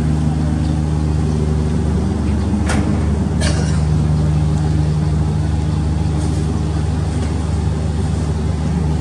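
Steady low drone of a ship's diesel engines, heard aboard the KM Glory Mary, with two short knocks about three seconds in.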